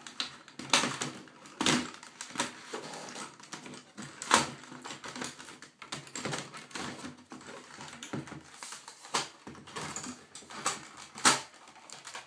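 Irregular clicks and knocks of a Sky+ HD DRX890 box's casing being handled as its internal unit is worked back into its case and clipped in. A few of the knocks are sharper than the rest.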